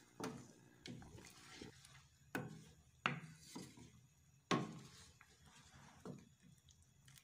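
Wooden spatula stirring chicken through a thick milk sauce in a nonstick karahi: about six soft knocks and scrapes of wood against the pan, spaced irregularly.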